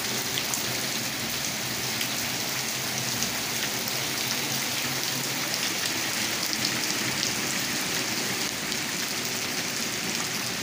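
Steady rain falling onto a flooded cement yard floor, the drops splashing into the standing water as a dense, even patter of small ticks.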